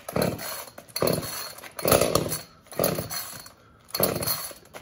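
Gasoline chainsaw's recoil starter pulled hard about five times in quick succession, each pull a short whirring rasp of the engine turning over. The engine does not catch.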